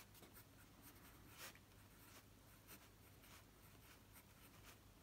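Faint scratching of a pen writing on lined paper, in a string of short strokes.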